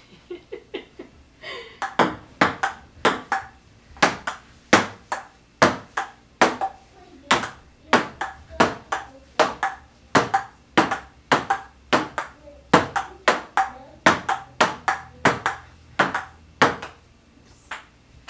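Table tennis rally: the ball clicking sharply back and forth off the paddles and the table, about three hits a second, for some fifteen seconds. A few lighter bounces come first, and the rally stops near the end.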